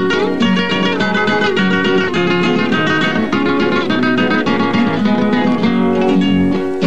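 Instrumental passage of a Latin American folk song: acoustic guitars plucking a melody over chords, with no singing.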